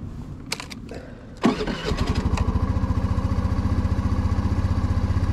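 Honda Navi's small single-cylinder four-stroke engine cold-started: a few light clicks, then a brief crank about a second and a half in, and the engine catches and settles into a steady, even idle to warm up.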